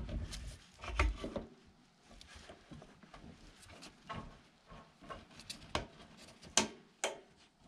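Irregular plastic clicks, taps and rubbing as a new fuel pump module is pushed down into the fuel tank opening and centred on its gasket by gloved hands. There is a sharper knock about a second in and another just before the end.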